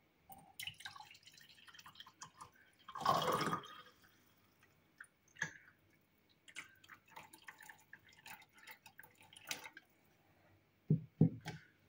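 Liquid poured from a plastic measuring jug into a ceramic mug, splashing and dripping unevenly, with one louder splash about three seconds in. Two short dull knocks come near the end.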